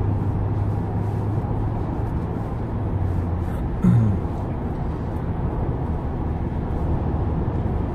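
Steady road and engine noise of a car driving, heard from inside the cabin, with a low hum. A brief low sound that drops in pitch comes about halfway through.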